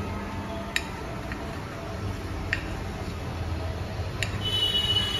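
A few light, sharp clicks of a knife against a glass plate as a stuffed semolina pancake is cut open, over a steady low hum. A steady high tone starts near the end.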